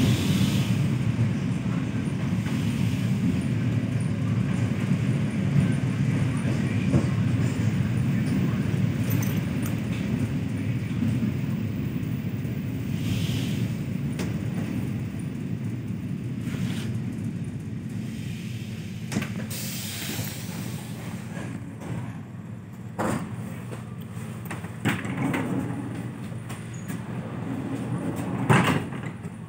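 ED4M electric commuter train heard from inside the carriage, its rumble of wheels and motors fading as it slows. Several short hisses and knocks come through, the loudest knock near the end.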